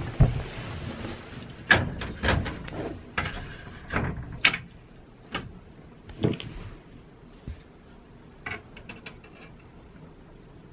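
Knocks and thumps on wood, with some rustling, as a cat climbs wooden wall steps and ceiling beams. The knocks come thick in the first few seconds, then one more about six seconds in and a few light clicks a couple of seconds later.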